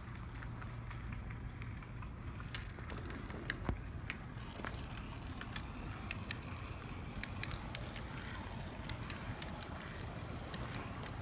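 Brasstrains HO-scale brass model of a Great Northern Q-1 2-10-2 steam locomotive running on the track: a steady low motor hum and wheel rumble with scattered small clicks, and one louder knock about three and a half seconds in.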